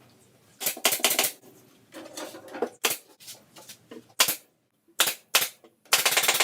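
Power driver driving screws into wood: a few short clattering bursts, then from about six seconds in a fast, continuous rattling run.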